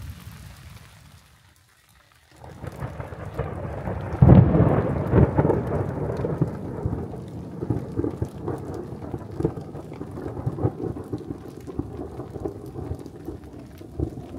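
A roll of thunder over steady rain. The sound drops almost to nothing about two seconds in, then the thunder builds to a loud clap about four seconds in and keeps rumbling under the rain.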